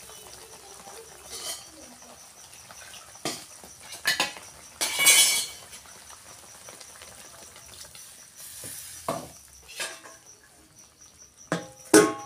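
Metal spoon knocking and scraping against a steel kadai as the curry gravy is stirred, a few separate clinks with one longer scrape about five seconds in. Near the end a steel plate clinks down onto the kadai as a lid, ringing briefly.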